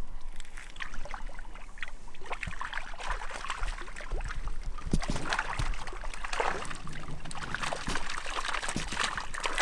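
Water splashing and trickling, a dense run of small irregular splashes and crackles.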